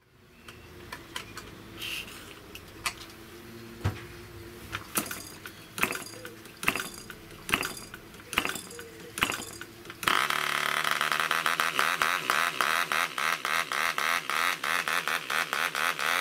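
Amco 3.5cc PB replica diesel model aircraft engine being hand-started on its first run. The propeller is flicked over with scattered pops and clicks for about ten seconds, then the engine catches and runs steadily with a rapid, rattling buzz.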